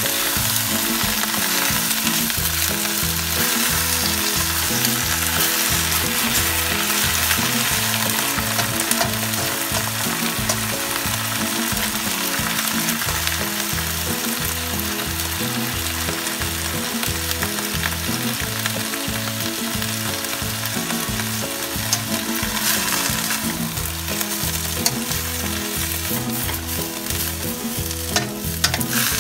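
Choy sum sizzling in hot oil in a stainless steel wok as it is stir-fried, the spatula scraping and tossing the greens against the metal.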